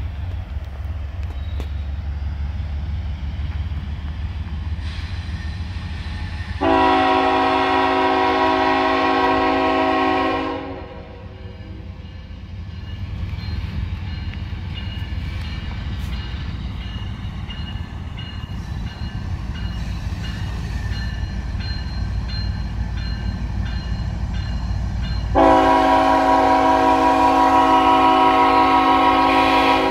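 Diesel freight locomotive approaching with its engines rumbling, sounding a multi-note horn in two long blasts: one about seven seconds in lasting about four seconds, and another starting about 25 seconds in.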